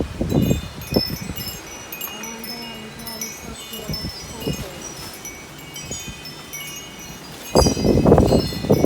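Wind chimes ringing continuously in a strong wind, with gusts buffeting the microphone at the start and again near the end.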